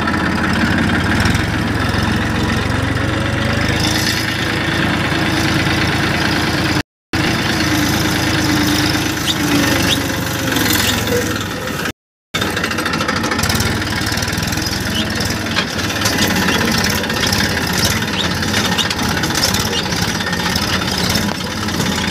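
Massey Ferguson 241 DI tractor's three-cylinder diesel engine running steadily, heard from the driver's seat. The sound drops out to silence twice, briefly, about 7 and 12 seconds in.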